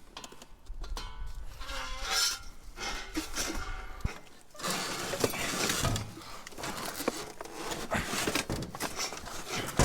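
Scrap metal and debris in a dumpster clanking, clinking and scraping as pieces are shifted and pulled loose, with many irregular knocks and rustling.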